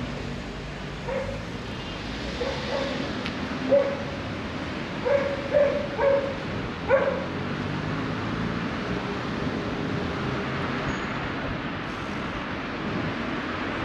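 A dog barking about seven times in short single barks, grouped closer together midway, over a steady background of street traffic noise.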